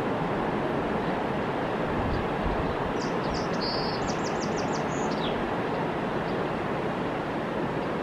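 Steady rushing of the Yellowstone River flowing past the rocky bank. About three seconds in, a small bird gives a quick run of high chirps lasting about two seconds, ending in a falling note.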